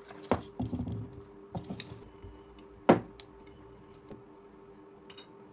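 Metal tools and parts being handled and set down on a work surface: a few knocks and clatters in the first two seconds, then a single sharp knock about three seconds in, the loudest. A faint steady hum underneath.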